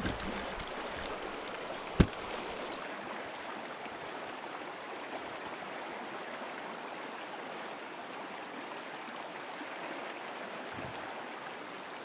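Fast-flowing mountain creek rushing steadily around a fallen log, with a single sharp click about two seconds in.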